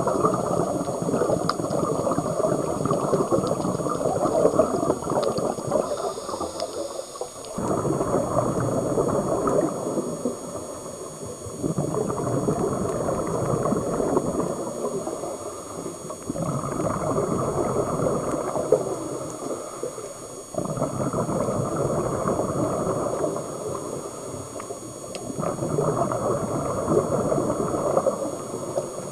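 Scuba diver's breathing heard underwater: long bubbling rushes of exhaled air from the regulator, one every four seconds or so, with short quieter dips between breaths.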